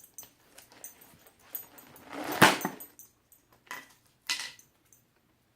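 Puppy moving about with small metal jingles, like collar tags, several times. Two short, noisy bursts stand out, the louder about two and a half seconds in and another a couple of seconds later.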